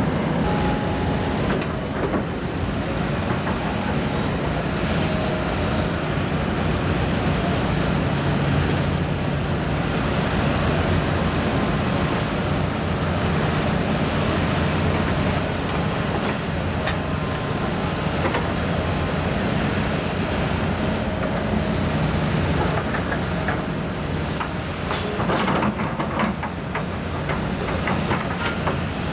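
Hitachi ZX210LC excavator working: its diesel engine runs steadily under hydraulic load, with a run of knocks and scrapes from the bucket and machinery near the end.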